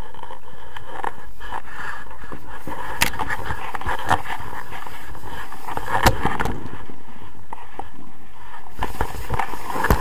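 Steady wind noise on an action camera's microphone as a tandem paraglider flies low, with a few sharp knocks on the camera mount. Near the end it turns rougher and uneven as the pair come down into dry grass.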